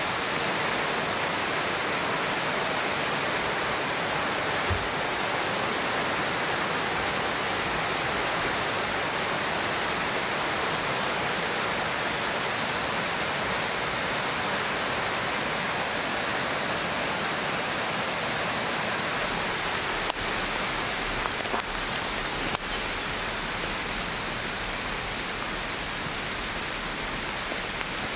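Steady, even rushing noise of outdoor forest ambience, with a few faint clicks around twenty seconds in.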